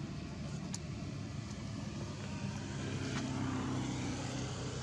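A distant motor engine hums steadily and swells somewhat past the middle. There is one brief sharp click near the start.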